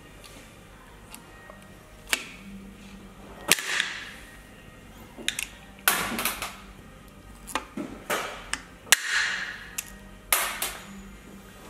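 Hand pop-rivet gun setting two blind rivets through a metal serial-number plate on an aluminium engine case: a series of sharp clicks as the handles are squeezed, with a louder snap each time a rivet's mandrel breaks off.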